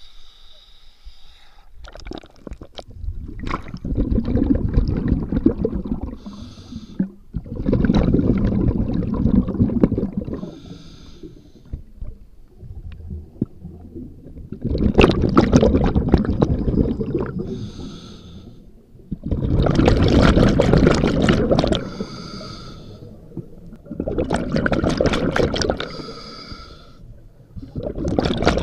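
A scuba diver breathing underwater through a regulator, heard close up: about six long bubbling exhalations of two to three seconds each, alternating with shorter hissing inhalations through the regulator.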